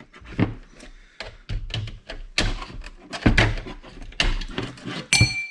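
Irregular knocks, taps and clunks of parts and tools being handled while a receipt printer is taken apart. Near the end, a sharp strike is followed by a short ringing tone.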